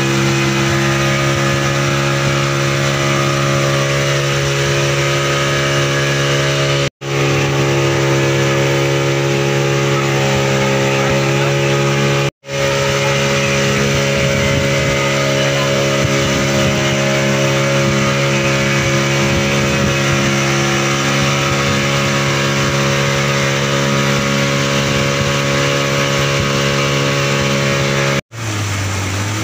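Passenger motorboat's engine running at a steady cruising speed, holding one even pitch, over the rush of water from the hull. The sound drops out for an instant three times.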